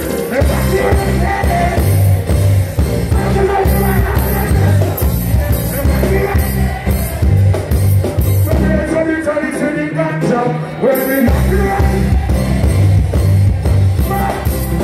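Live reggae band playing with a male singer over it. The bass drops out for a few seconds past the middle and then comes back in.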